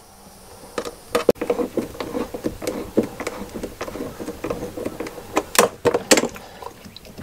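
Hands handling the plastic water-valve fittings and supply-line nut of an RV toilet: scattered light clicks, taps and rubbing, with a few sharper clicks about a second in and again later on.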